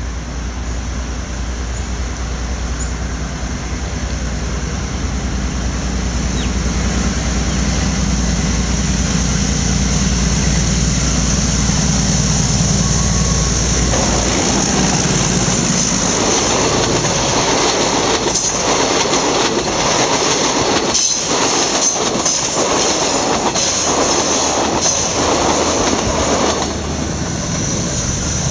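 KTM YDM4 diesel-electric locomotive passing with its engine drone building until it goes by about halfway through, then the passenger coaches rolling past with a rhythmic clickety-clack of wheels over the rail joints, easing near the end as the train moves away.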